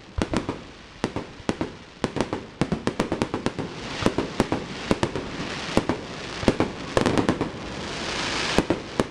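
Aerial fireworks bursting in quick, irregular succession: many sharp bangs and cracks over a continuous hiss from the burning stars.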